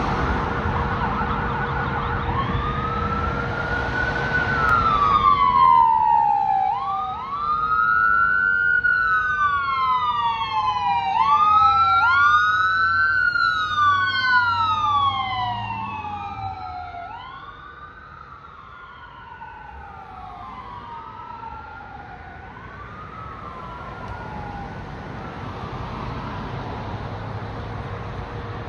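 Ambulance siren going by on Code 3: a fast yelp that switches about two seconds in to a slow wail, rising and falling every few seconds with doubled, overlapping sweeps. It is loudest as the ambulance passes, then fades over the second half as it drives away, with the vehicle's engine rumbling underneath.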